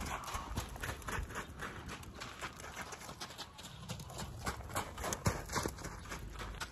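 Hoofbeats of a saddled horse circling on a lunge line over packed dirt: a quick, uneven run of thuds, several a second.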